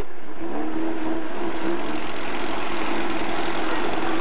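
Off-road vehicle's engine running steadily, its pitch rising briefly a few times about half a second in before settling.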